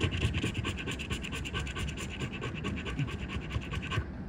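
Scratch-off lottery ticket being scraped, its coating rubbed away in rapid, even back-and-forth strokes that stop suddenly about four seconds in.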